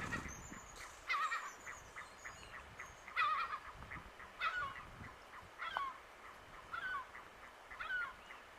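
Steamer ducks (pato quetru) calling: a series of about six wavering calls, roughly one every second, with faint thin high-pitched notes in the first few seconds.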